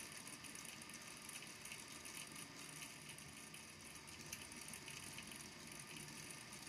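Faint, light clicking of the small balls in a water-filled volcano lamp tapping on the base of the tank as they sink back down, over a steady faint hum.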